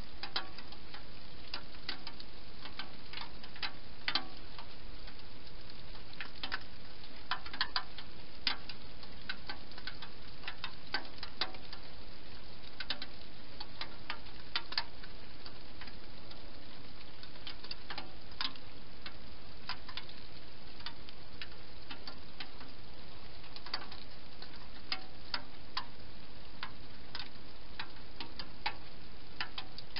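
Wild hedgehog eating from a bowl: irregular, crisp clicks of crunching food, over a steady hiss.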